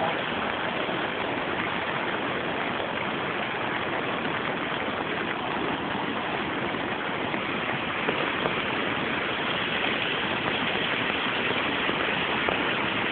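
Steady rushing of a muddy river in flood, its fast brown water making an even, unbroken roar.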